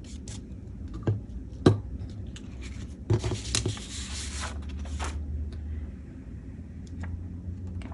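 Paper being handled on a craft table: two sharp taps just over a second in, then a few seconds of paper rustling and scraping.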